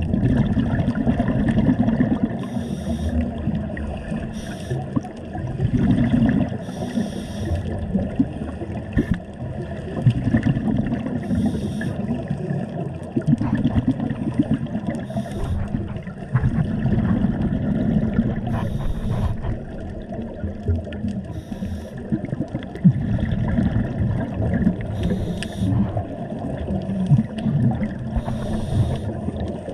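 Scuba diver breathing through a regulator underwater: short hissing inhalations every two to four seconds, alternating with longer, louder gurgling rumbles of exhaled bubbles.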